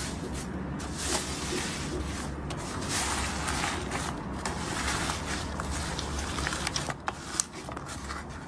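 Slime being squeezed and worked by hand: a continuous crackly, squishy rustle dotted with small pops and clicks.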